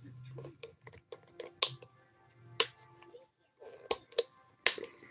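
Fingers tapping and clicking on a phone close to the microphone: a handful of sharp, irregular taps, about a second apart, with a quick pair near the end.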